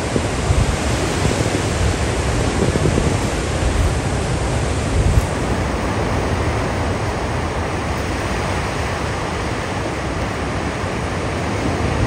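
Steady, loud rushing noise with no distinct events. During roughly the first half, gusty low rumbles come through, typical of wind buffeting the microphone.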